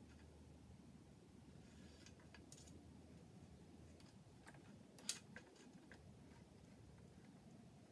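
Near silence with a few faint clicks of small metal hardware and a hand tool being handled during assembly, the sharpest about five seconds in.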